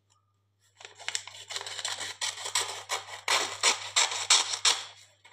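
Scissors cutting lined notebook paper into thin strips: a continuous run of short cutting strokes and paper rustle, starting about a second in.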